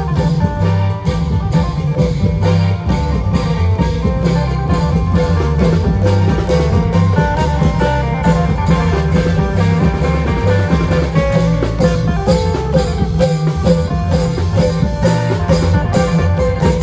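Isan long-drum (klong yao) ensemble playing, with dense, steady drum strokes under a fast plucked-string melody.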